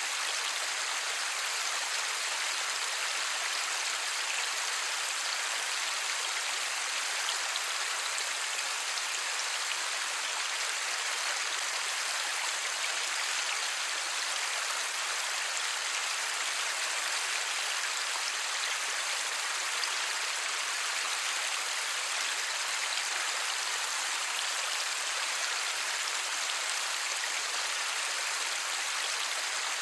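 Steady light rain falling, an even hiss of many drops with no thunder.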